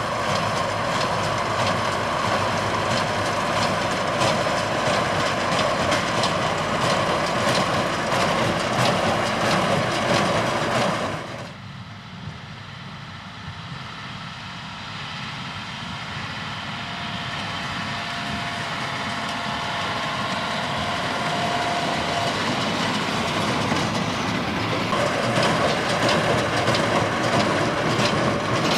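Tractor-drawn hay baler working in the field: steady machine noise with a regular rhythmic clacking. The level drops sharply about eleven seconds in, then grows steadily louder again.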